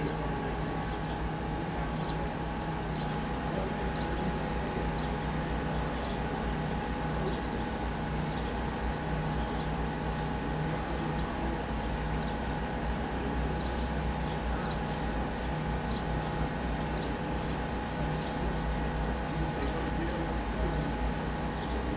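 Steady low background rumble with no train passing, and a bird repeating a short, high, falling chirp about once a second.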